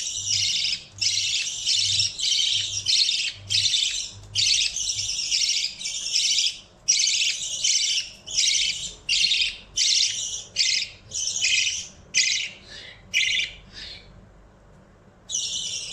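Baby budgerigar giving a run of harsh, rasping begging calls, about two a second, that grow shorter and stop near the end, with one more call just before the end.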